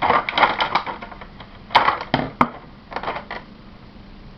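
Hard plastic model-kit parts and packaging being handled: a quick run of clicks and rattles, then a few separate sharper clacks, with quiet in between.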